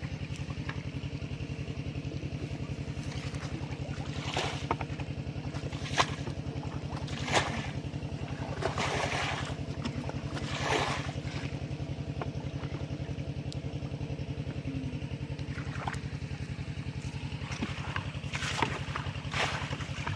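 A small engine running steadily with a fast, even low pulse. Several brief noisy swishes come over it.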